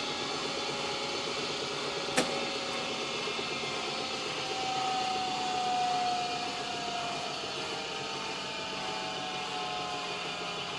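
Royal Master TG-12-4 centerless grinder running under power, a steady machine hum with a sharp click about two seconds in and a whine that swells and slowly falls in pitch between about four and seven seconds. Runs pretty good.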